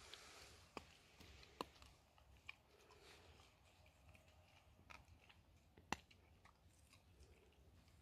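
Australian cattle dog gnawing on a wooden stick, faint chewing broken by about five sharp cracks of the wood splintering.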